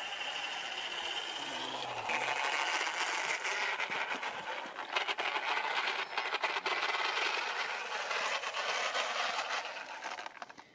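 A small RC car's brushless electric motor and drivetrain whining as the car drives on tarmac, with rattling clicks from the running gear. It gets louder about two seconds in and fades near the end.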